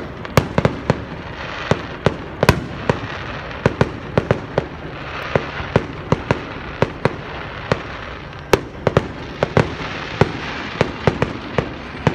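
Fireworks going off in a dense, irregular barrage of sharp bangs and pops, several a second, with a few louder bangs standing out.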